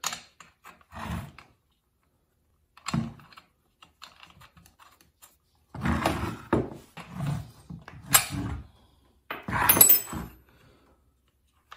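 Handling noise from reassembling a Homelite XL chainsaw: irregular knocks and thunks of the plastic housing being turned and set on the workbench, and clinks of metal parts and tools as the spark plug is fitted. The sharpest clicks come about eight seconds in, and the loudest clatter comes near the end.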